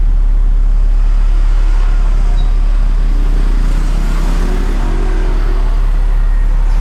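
HF Audio ASW 118A 18-inch subwoofer reproducing a steady 35 Hz test tone: a loud, very low, continuous hum, the deep "glerr" of the driver at the bottom of its rated range.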